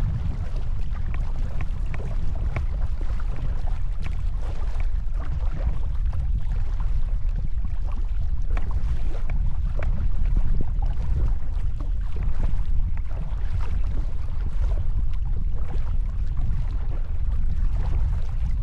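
Strong wind rumbling steadily on the microphone, over the irregular splashing of kayak paddle strokes and small waves against the hull as a folding kayak is paddled into a headwind.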